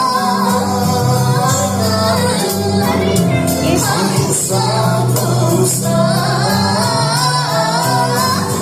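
A powerful singing voice performing over backing music with a bass line and percussion.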